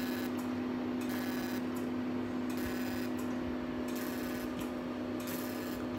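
Cosmetic facial laser machine running with a steady hum, and its handpiece firing in short buzzy crackling bursts about once or twice a second.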